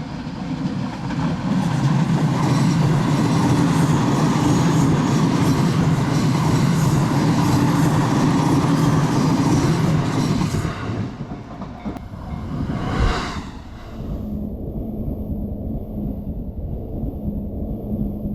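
A train passing close by on the Sobu Main Line: a loud, steady rumble of wheels on rail that drops away suddenly about ten seconds in. A short surge comes near the thirteen-second mark, then a lower steady sound remains.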